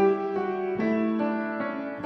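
Background music: a melody of held notes, a new note about every half second.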